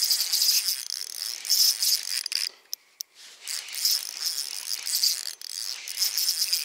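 Spinning reel being cranked while a hooked fish is played, a dry rattling whir that surges and eases and breaks off briefly about two and a half seconds in.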